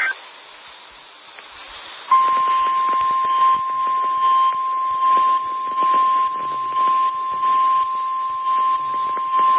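Hiss and crackle of radio reception, then about two seconds in a single steady 1050 Hz weather-radio warning alarm tone comes on and holds, its level wavering up and down. The tone signals that an emergency weather warning is about to be read.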